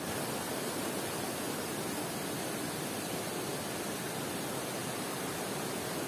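Shallow stream rushing steadily over sandstone ledges at the top of a waterfall.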